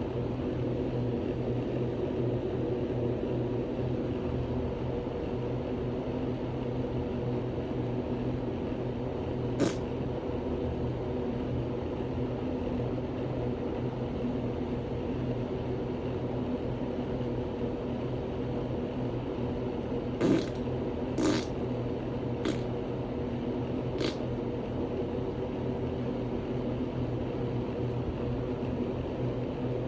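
A steady mechanical hum with five short clicks: one about ten seconds in and four close together from about twenty to twenty-four seconds in, the first two of these the loudest.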